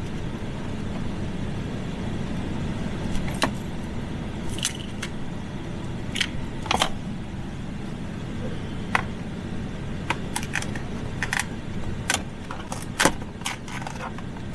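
Scattered sharp clicks and taps of the center console's plastic lid parts and small tools being handled and pried at, over the steady rush of the truck's air-conditioning blower.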